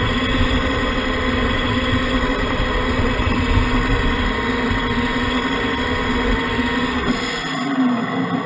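Radio-controlled model truck running with the camera on board: a steady engine-like hum over a low rumble from the wheels on gravel. The rumble stops about seven and a half seconds in as the truck halts, while the hum carries on with a brief dip in pitch.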